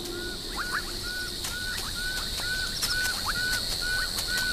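Night-time African bush ambience: a steady high chirring of insects with a small animal's short, slightly falling call repeated about three times a second.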